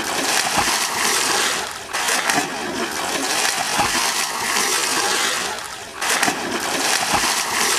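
Heavy splashing and churning water as a kayak flips end over end and slaps down in a small pool. The splashing surges afresh about two seconds in and again near six seconds.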